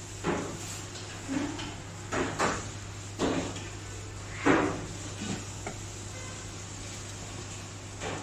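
A run of short knocks and scrapes of kitchenware being handled, about seven in the first five seconds and loudest about four and a half seconds in, over a steady low hum.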